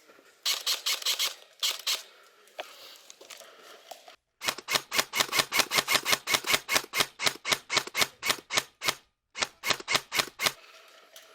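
Airsoft gun firing. A short quick burst comes about half a second in, then from about four and a half seconds in a long run of rapid shots at about seven a second, with a brief break near nine seconds.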